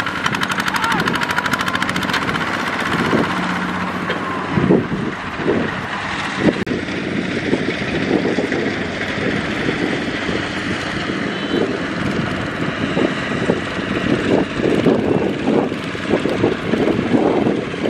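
Kubota RT140 power tiller's single-cylinder diesel engine chugging steadily while it tows a loaded rice trailer through soft paddy mud.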